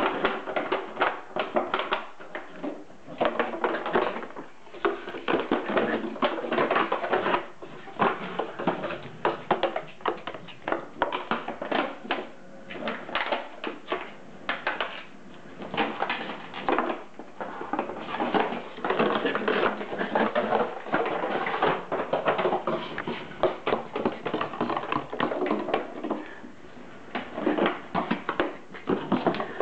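A 2-litre plastic bottle crackling and clattering against a wooden floor as a West Highland white terrier puppy bites, pounces on and tosses it: a dense, irregular run of crinkles and knocks with a few short lulls.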